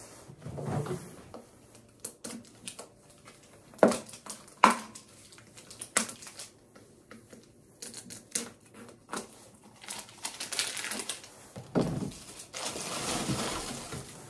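Plastic packaging and bottles being handled and crinkled while sorting recycling, with scattered clicks and knocks, the sharpest two about four seconds in, and stretches of rustling later on.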